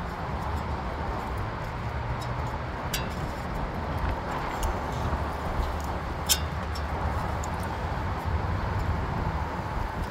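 Steady background rumble and hiss, with a few light, sharp clicks of small metal parts being handled: a small evaporator fan motor and its metal fan blade.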